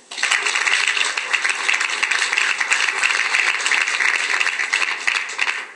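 Audience applauding: dense clapping that cuts in suddenly and cuts off shortly before the end.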